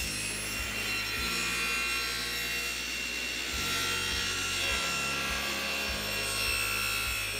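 Table saw running steadily as its blade is raised up through a plywood crosscut sled, sawing its own kerf through the sled.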